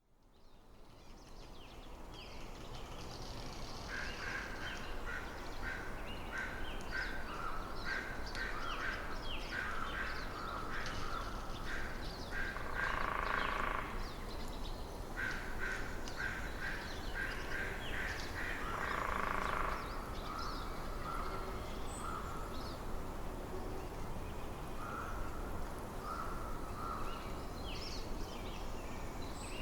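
Birds calling in a forest: many short, repeated chirps, with a few louder, harsher calls now and then, over a steady low background rumble. The sound fades in from silence over the first few seconds.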